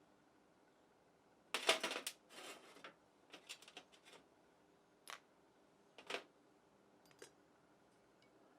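Small hard parts or tools being handled: a quick run of clattering clicks about a second and a half in, then a few scattered single clicks and taps.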